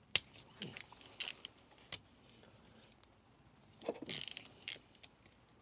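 Small metal clicks and clinks of hand tools and nuts being handled on an engine cylinder head during dismantling, with a sharp click just after the start and a short clatter about four seconds in.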